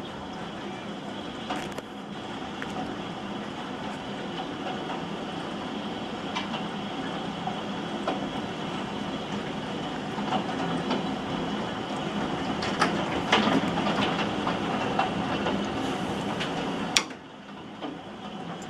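Heavy thunderstorm downpour: a steady dense rush of rain with scattered sharp ticks of impacts, heaviest about two-thirds of the way through. Near the end a sharp knock, after which the rain sounds much quieter.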